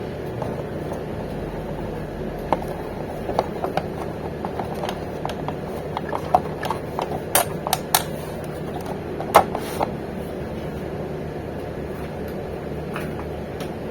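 Epson L5190 inkjet printer running its start-up mechanism after being powered on: a steady mechanical whir with scattered clicks and ticks, the loudest about nine seconds in.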